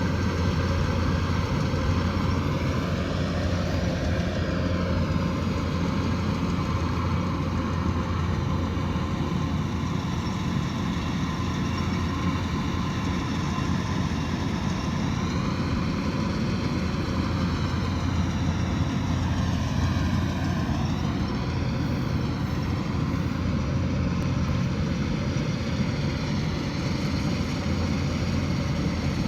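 Kubota DC108X combine harvester running steadily, with a strong low engine hum and a tone that shifts slightly up and down now and then.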